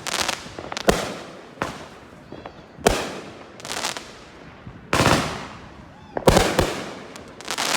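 Fireworks going off: about ten sharp bangs at irregular intervals of roughly a second, each trailing off as it echoes.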